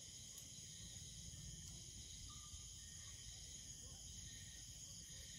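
Faint, steady chorus of night insects, a continuous high trill, over a low background rumble.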